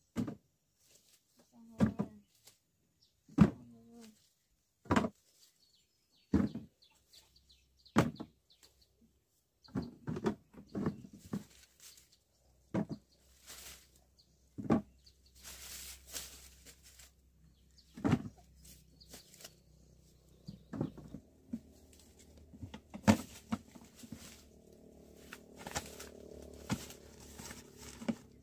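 A blade chopping sugarcane stalks: sharp strikes about one every second and a half, then quicker, irregular knocks with rustling in between. A faint steady hum comes in during the second half.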